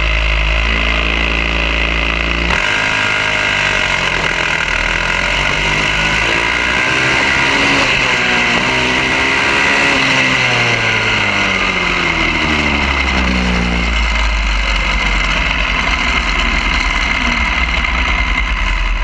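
Mini bike's small single-cylinder engine revving up and down repeatedly for about twelve seconds, over a steady low engine drone that is heard alone at the start and again for the last few seconds.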